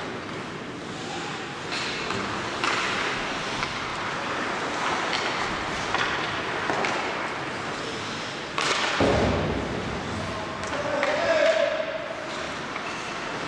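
Ice hockey play heard in a rink: sharp clacks of sticks and puck over a steady noise of skating and the arena. A heavy thud about nine seconds in, and a short shout soon after.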